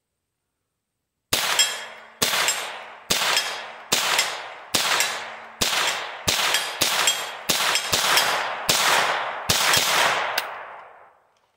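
An AR-15 pistol with a CMMG .22 LR conversion kit fired semi-automatically, about fourteen shots, each followed by a long fading echo. The shots come about a second apart at first, then faster at about two a second, and the string ends near the end.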